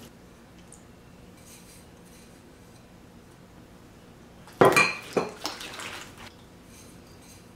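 A small ceramic bowl knocks sharply twice against the rim of a large glazed terracotta mixing bowl about halfway through, followed by a few lighter clinks as an egg is tipped into the batter.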